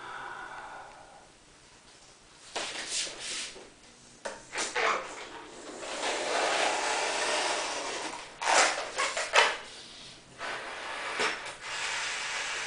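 A long modelling balloon being blown up by mouth: hard, steady breaths of air forced into the balloon, the longest a few seconds after the start, with short sharp breaths taken in between blows.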